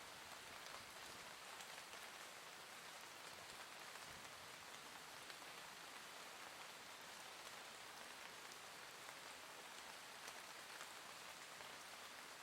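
Soft, gentle rain falling steadily: a faint, even hiss with scattered small drop ticks.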